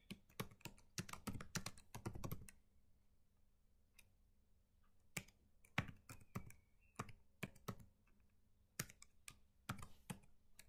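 Faint computer keyboard typing: a quick run of keystrokes for about two and a half seconds, a short pause, then scattered single keystrokes.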